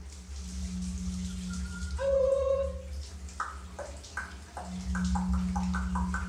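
Water dripping: a string of short pitched drops that come faster toward the end, over a steady low hum. A short, loud pitched sound comes about two seconds in.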